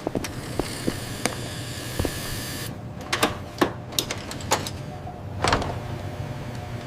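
A steady low machine hum with scattered sharp clicks and a few short swishes.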